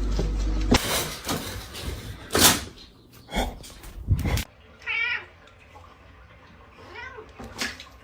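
Domestic cat meowing: one long wavering meow about five seconds in and a fainter one a couple of seconds later, after a few short knocks and bumps.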